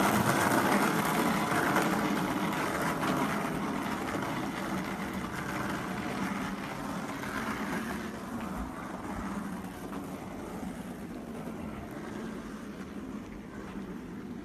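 Skateboard wheels rolling over a rough tarmac path, a steady rolling noise that gradually fades as the board moves away.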